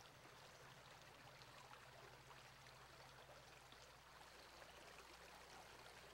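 Near silence: a faint, even hiss with a low steady hum beneath.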